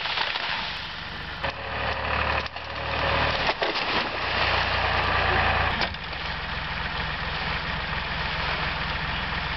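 Tractor engine running under load while its front-loader grab shoves a heap of cut branches, with sharp cracks of brushwood snapping several times.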